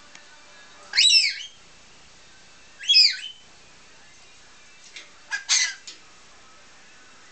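Rainbow lorikeet calling: two short, shrill calls that bend in pitch, about two seconds apart, then a harsher screech near the end.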